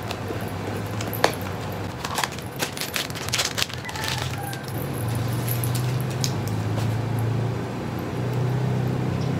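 Small clear plastic bag crinkling and crackling in the hands as it is opened, a quick string of crackles and clicks in the first half. From about halfway a low steady hum comes in behind it.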